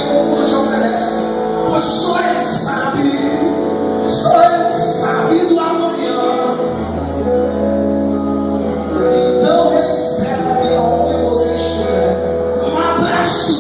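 Gospel worship music: singing over sustained chords, with a low bass note that enters about halfway through.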